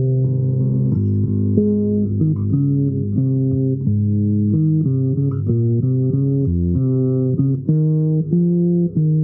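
Solo improvised instrumental music: a low-pitched plucked string instrument plays a melody one note at a time, changing notes several times a second, then settles into longer held notes near the end.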